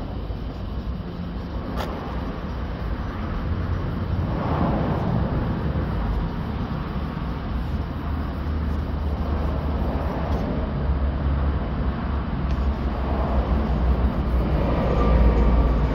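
Steady low rumble of outdoor traffic and wind noise, swelling louder near the end.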